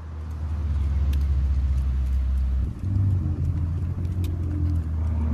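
A Ferrari's engine running at low revs with a deep, steady rumble as the car creeps forward. The note steps up slightly about three seconds in.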